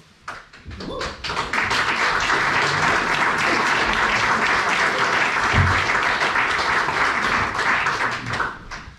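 Audience applauding: a few scattered claps at first, swelling into steady applause about a second in and dying away near the end.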